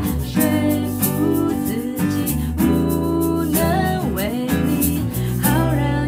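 Live band playing a slow pop-rock song: a woman's voice singing over a strummed acoustic guitar and electric bass.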